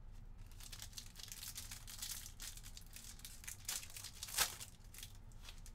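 A Panini Absolute trading-card pack wrapper being torn open and crinkled by hand: irregular crackling, with the loudest crackle about four and a half seconds in.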